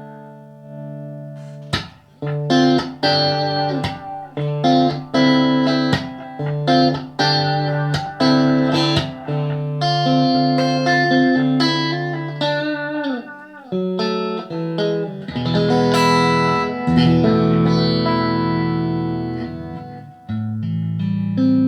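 Electric guitar played through a Blackstar ID:Core 40 combo amp on its crunch voice with reverb: picked notes and chords, a string bend about two-thirds of the way through, then longer ringing chords near the end.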